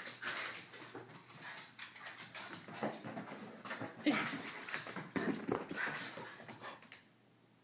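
A dog vocalizing during excited play, amid a steady run of scuffling sounds. It starts abruptly and stops just before the end.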